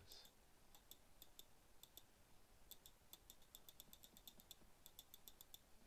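Faint clicking of a computer mouse, in several quick, irregular runs of clicks with short pauses between them.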